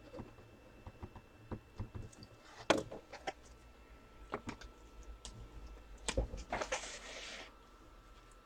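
Scattered clicks and taps of a computer keyboard and mouse, with a louder click a few seconds in and a brief rustle about two-thirds of the way through.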